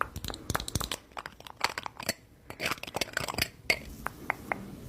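Rapid, irregular crunchy clicks and crackles, with a brief lull about two seconds in.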